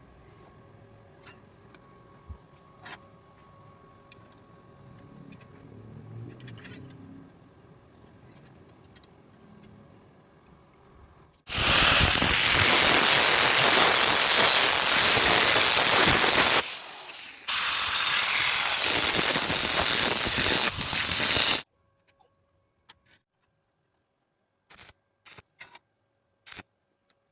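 Arc welding on angle iron: the welding arc crackling and hissing loudly and steadily for about ten seconds, in two runs with a brief break near the middle. Before it come faint clicks and knocks, and after it near silence with a few clicks.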